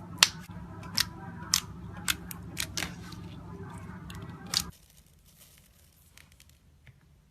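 Slime worked by hand, giving about seven sharp pops and clicks as air pockets snap, over a steady low hum that cuts off suddenly about two-thirds of the way in, after which only faint crackles remain.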